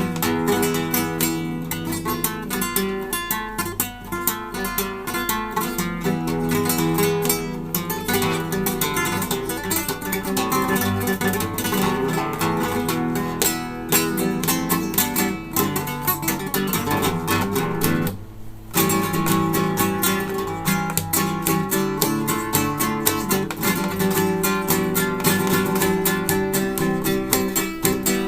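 Acoustic guitar playing a fast run of plucked and strummed notes, breaking off briefly about eighteen seconds in before carrying on.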